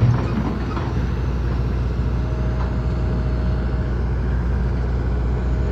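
John Deere 225D LC tracked excavator's diesel engine running steadily under work, with a low, even hum and a faint thin whine partway through.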